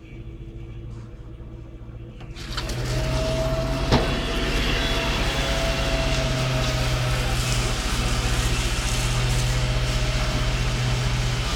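Water from a fire hose hitting a burning car: a steady rush of spray and steam that starts suddenly about two seconds in, over the steady running of a fire engine. One sharp knock about four seconds in.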